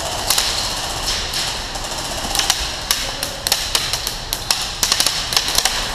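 Airsoft gunfire and BB hits: a run of irregular sharp cracks and taps, coming thicker in the last few seconds.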